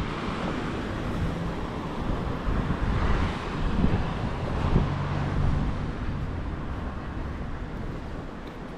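Road traffic going by, with wind rumbling on the microphone.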